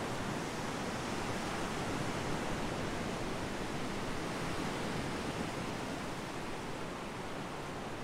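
Surf washing onto the beach: a steady rush of breaking waves, swelling a little about two seconds in.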